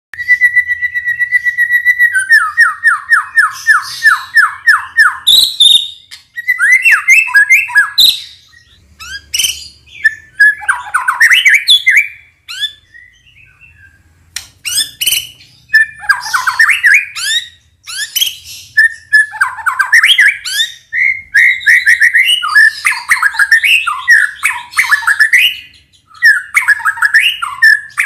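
White-rumped shama (murai batu) singing: a long steady whistle, then a fast run of repeated notes at about four a second, then a varied string of whistled phrases and harsh chattering notes, with a short quieter pause about halfway.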